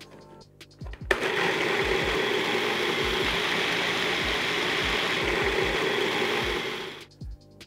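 Food processor motor switching on about a second in and running steadily, blending a thick mix of soaked cashews and coconut oil into a cream, then cutting off near the end.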